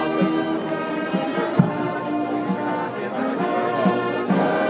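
Brass band playing a slow piece of long held notes, with a single loud drum thump about a second and a half in, over the voices of a crowd.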